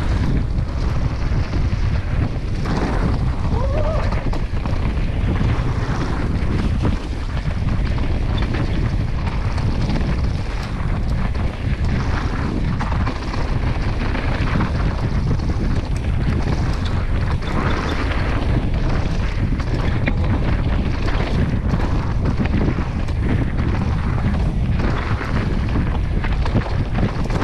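Wind rushing over a helmet-mounted camera's microphone during a fast downhill mountain-bike descent, mixed with the tyres rolling over a dirt trail and scattered knocks from the bike over bumps.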